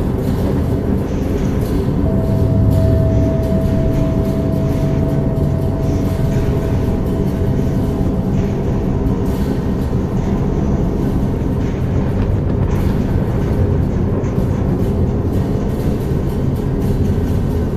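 Low, steady drone of Bon ritual music: deep Tibetan-style chanting in a dense low register. A thin high tone is held for several seconds near the start.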